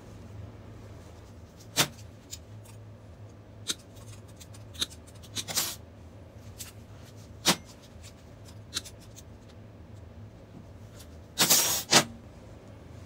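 Stainless steel wire drain rack clicking and clinking as it is handled against a steel work table: a string of sharp single clicks, then a longer, louder metal clatter near the end. A low steady hum runs underneath.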